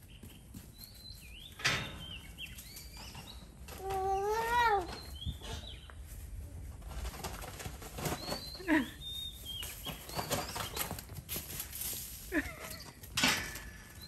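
Birds chirping and calling, with one louder drawn-out call that rises and then falls in pitch about four seconds in. A few brief rustling sounds are mixed in.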